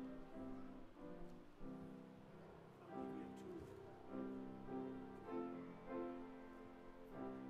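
Grand piano playing softly, a slow piece of held chords and melody notes, with new notes struck about once a second and left to ring.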